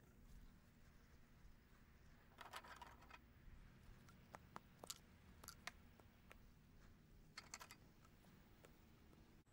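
Faint, scattered clicks and clacks of raised-garden-bed stacking stakes being handled and set down beside the board joints, in small clusters with single ticks between, over near silence.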